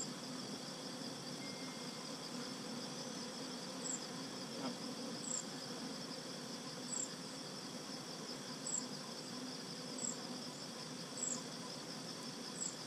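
Honeybees buzzing around an open hive, a steady low hum, over a steady high trill of insects. Short high falling chirps come every second or two.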